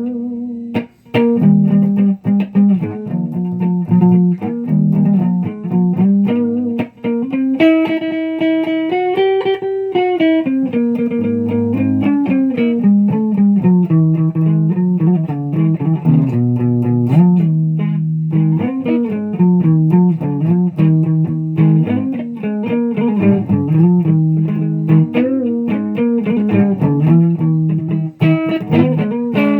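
Guitar music: a plucked guitar playing a continuous run of notes, with a brighter, higher passage with slight bends in pitch about eight to ten seconds in.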